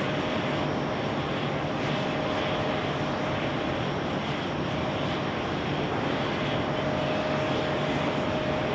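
Airbus A330-300's twin General Electric CF6-80E1 turbofans at takeoff power during the takeoff roll: a steady jet roar with a thin, even whine running through it.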